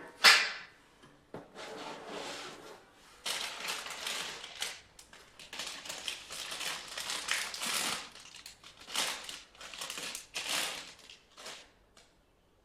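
Irregular crinkling and rustling handling noises, a string of short scrapes and rustles, with a sharp knock at the very start.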